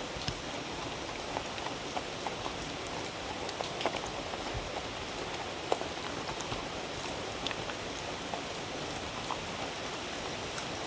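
A dog eating soft mixed food from a wooden bowl: irregular small clicks and smacks of licking and chewing, heard over a steady rain-like hiss.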